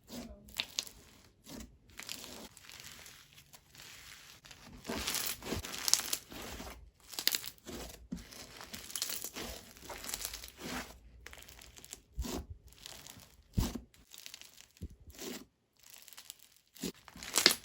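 Snow fizz slime being pressed and stretched by hand, crackling and crinkling in irregular bursts with a few sharp pops.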